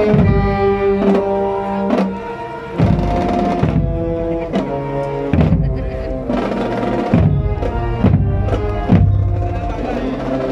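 Marching brass band playing a slow procession march live: held brass chords over steady drum beats, a little more than one beat a second.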